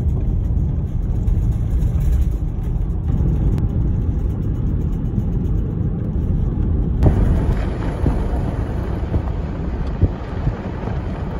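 Road and wind noise of a vehicle driving, a steady low rumble. Its character shifts at an edit about seven seconds in.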